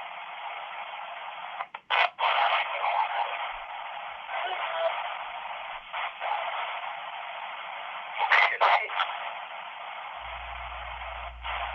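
S-Box ghost box sweeping through radio stations: steady thin static broken by short louder bursts and brief cut-outs, with snatches of radio voice in the hiss.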